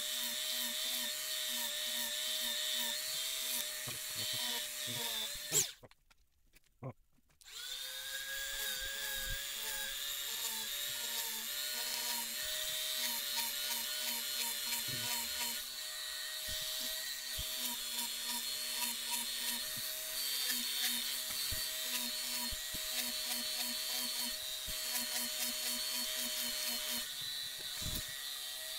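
Handheld rotary tool running with a steady high whine, its pitch wavering as a 0.8 mm bit drills via holes in a copper-clad circuit board. It cuts out after a sharp click about six seconds in and starts up again a couple of seconds later.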